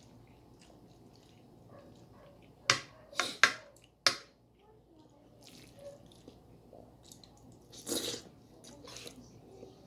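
A person eating from a plate: four sharp clinks of cutlery on the plate, close together about three seconds in, and a short noisy burst of eating sound about eight seconds in.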